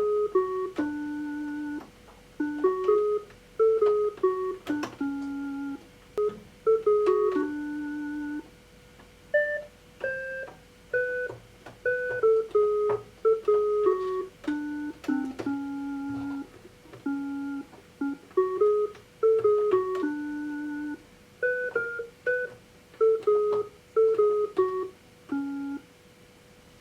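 A Casio SA-75 electronic keyboard playing a simple melody, one note at a time, with short plucked-sounding notes and longer held ones. A faint steady tone hums underneath throughout.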